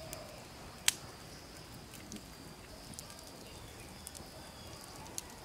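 Wood fire of burning sticks crackling: scattered sharp snaps, with one loud crack about a second in, over a faint steady high hiss.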